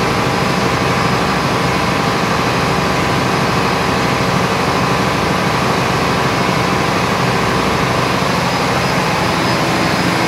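Cummins QSM11 turbocharged inline-six diesel genset running steadily at its constant generator speed, a loud, even engine-room drone that does not change.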